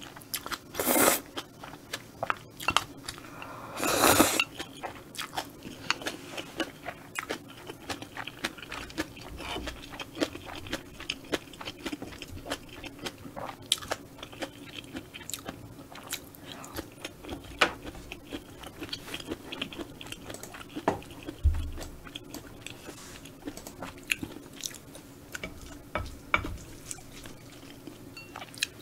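Close-miked eating of spicy stir-fried squid and noodles: two loud slurps of noodles about one and four seconds in, then steady chewing with many small wet clicks and crunches.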